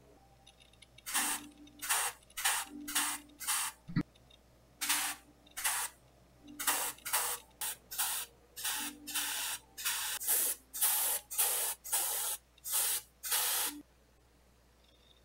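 Airbrush spraying paint in about twenty short hissing bursts of a fraction of a second each, the trigger pressed and released again and again while misting skin-tone paint onto a resin miniature. A single sharp click sounds about four seconds in.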